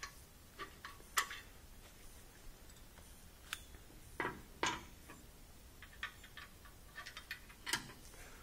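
Scattered light clicks and taps at irregular intervals, the sharpest about a second in, two together around four and a half seconds in, and one near the end.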